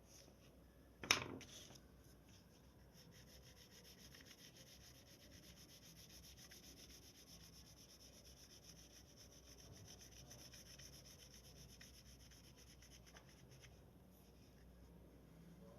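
Faint, steady scratching of a drawing tool rubbed back and forth on paper, as in shading or colouring in, after a single sharp tap about a second in.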